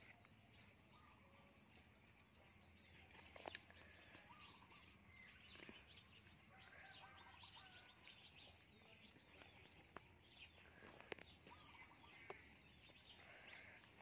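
Near silence: faint outdoor ambience with a high, thin chirring that runs in stretches and breaks into quick runs of three or four pulses every few seconds, with a few soft clicks and rustles.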